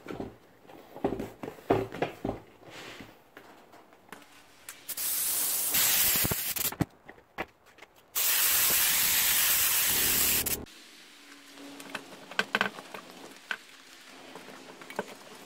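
Two long hissing sprays from an aerosol can, the first about five seconds in and the second, longer one about eight seconds in, each lasting around two seconds. Before and after them, vinyl seat-cover material rustles and clicks as it is handled.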